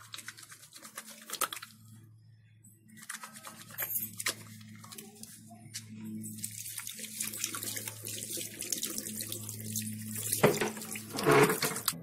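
Soapy hands rubbing and lathering with a fine crackling squish. About halfway through the tap is turned on and water runs into the washbasin as the hands are rinsed, with a couple of louder splashes near the end.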